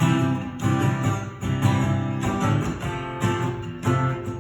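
Acoustic guitar strummed in a steady rhythm, a new chord struck about every half-second to two-thirds of a second.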